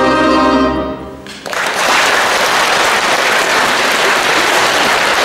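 An orchestra with piano holds its final chord, which cuts off about a second in, ending the piece. After a short pause the audience breaks into steady applause.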